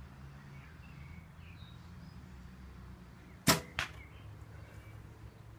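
A recurve bow is shot: the string snaps forward sharply on release about three and a half seconds in. About a third of a second later comes a second, quieter knock, the arrow striking the target.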